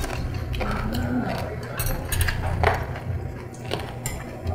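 Metal spoon and chopsticks clicking and clinking against bowls and plates during eating, several separate clinks, with a short murmured voice sound about a second in.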